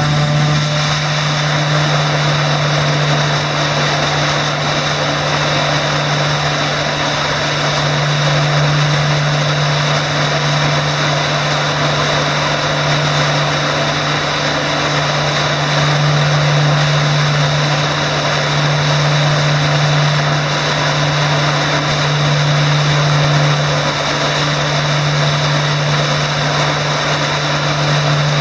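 A motor or engine running steadily, a constant low hum with a high whine over it that does not change in pitch or level.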